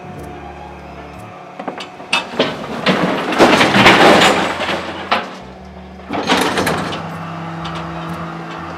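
Refuse compactor's hydraulic bin lifter tipping a wheelie bin: a few knocks, then a loud rushing clatter for about three seconds as the rubbish tumbles out into the hopper, and a shorter clatter a couple of seconds later. A steady low hum of the compactor's machinery runs underneath.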